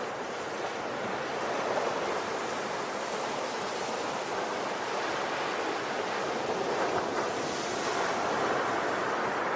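Sea waves washing onto a shore, a steady rushing surf that swells gently and recedes.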